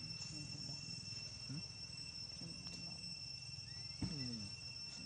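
Steady high-pitched drone of insects, two unchanging tones, with faint distant voices underneath, a little stronger about four seconds in.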